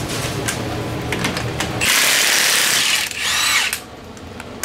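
A few light clicks, then an impact wrench runs in a loud burst of about a second on the rear axle nut of a Polaris RZR Turbo, followed by a second, shorter burst as the nut is worked off.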